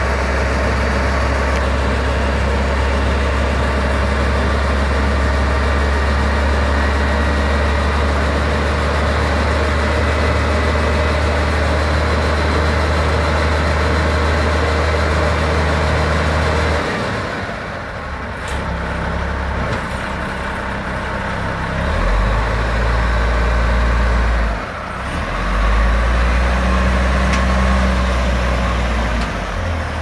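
FTI fire truck's engine idling steadily with a deep, even hum. About halfway through the sound dips and the engine note changes, then rises and falls twice as the truck pulls away.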